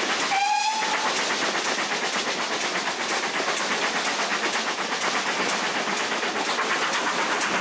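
A steam-hauled passenger coach running along the track, heard from an open window: a steady rushing rattle with many small clicks from the wheels and coach. About half a second in, a brief high tone sounds for under a second, falling slightly in pitch.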